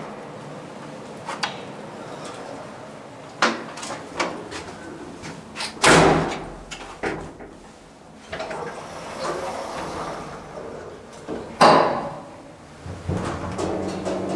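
A series of knocks and clunks, with two louder bangs about six seconds apart; a steady hum starts near the end.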